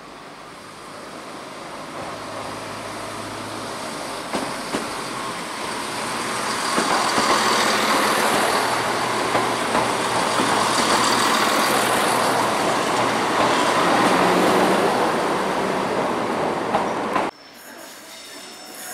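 ScotRail Class 170 Turbostar diesel multiple unit approaching and running along the platform past the camera. Its engine and wheel noise builds over the first several seconds and stays loud, with a faint high whine. It cuts off suddenly near the end.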